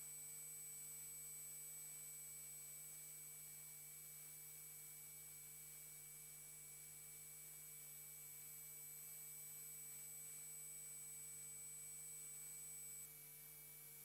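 Near silence: room tone with a faint steady hum and a thin high whine that stops about a second before the end.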